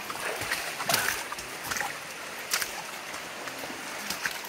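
Shallow rocky river flowing steadily, with a few short splashes and knocks of people wading and stepping through it.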